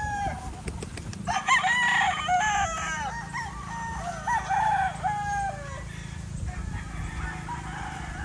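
Several gamefowl roosters crowing, their crows overlapping. One crow trails off at the start, then a cluster of crows begins about a second in and lasts several seconds, with fainter crows after it.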